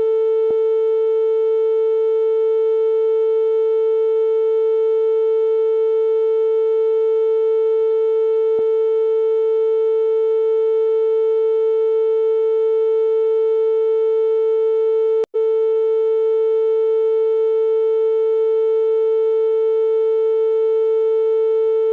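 Synthesized steady tone at a single mid pitch with a stack of fainter overtones, held unchanging, with one brief click-like dropout about 15 seconds in.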